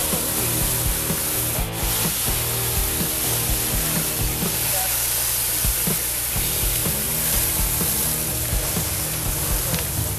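Burning wooden shed giving a steady hiss with scattered crackles, over a low droning tone.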